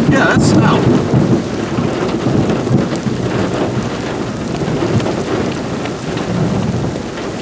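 Heavy thunderstorm rain, a loud, steady rushing noise with a low rumble, from the rain wrapping around a tornado.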